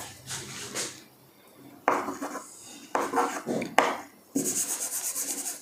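Chalk writing on a blackboard: a series of short taps and scratchy strokes, then a longer rasping stroke near the end.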